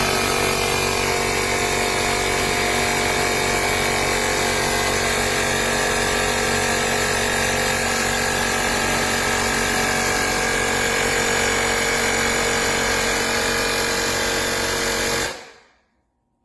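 Cordless portable tire inflator's electric air compressor running at a steady pitch, switching on abruptly and winding down to a stop about fifteen seconds in.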